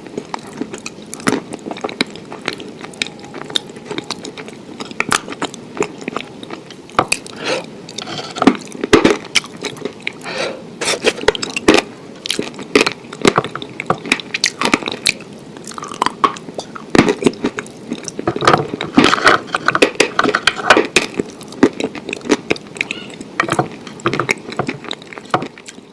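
Close-miked chewing and biting of food, a dense run of irregular crunchy clicks and moist mouth sounds.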